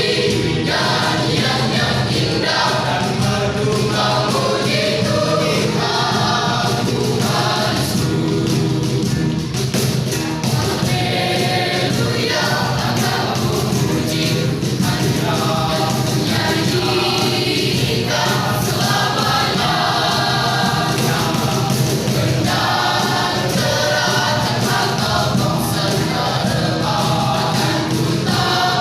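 Church youth choir singing a gospel song in several voices.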